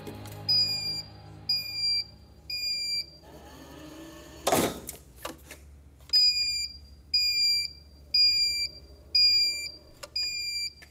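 Electronic warning beeper sounding a steady half-second beep about once a second, three times, then five more after a pause. In the pause comes a whoosh and a loud thump.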